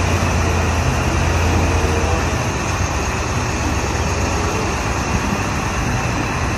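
Heavy mobile crane truck's diesel engine running steadily, with a low drone that fades about two seconds in.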